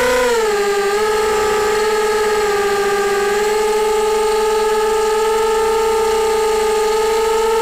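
Brushless motors and propellers of a QAV250 quadcopter whining, heard from the camera on the quadcopter itself. The pitch swells and dips right at the start, then holds steady as it flies slowly, rising slightly near the end.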